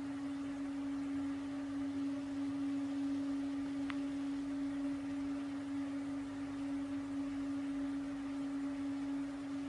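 A steady low electronic hum at one unchanging pitch over faint hiss, with a single brief tick about four seconds in.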